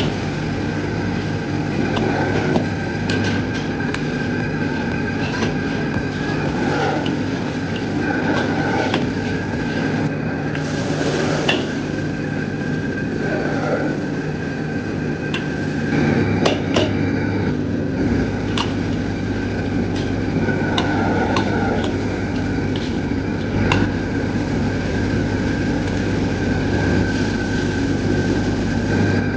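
Commercial gas wok stove running with a steady, loud rumbling noise, as chicken sizzles and bubbles in the wok. A metal ladle knocks and scrapes against the wok now and then, giving scattered sharp clinks.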